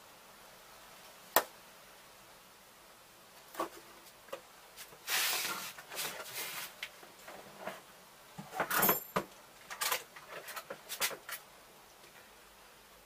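Handling noises as a bank of ultracapacitors in a plastic tray is moved away from a wall: a sharp click about a second in, then a run of knocks, scrapes and rustles over several seconds.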